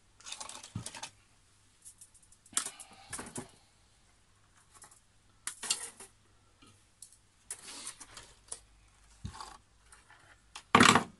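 Irregular clicks, rattles and rustles from objects being handled on a wooden workbench, coming in short clusters with quiet gaps between them. The loudest clatter comes just before the end.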